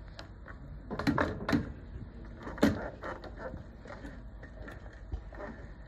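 Hands handling thread and parts at the needle of an industrial sewing machine: a few light knocks and clicks, clustered about a second in with one sharper knock near the middle and fainter ticks after. The machine is not running.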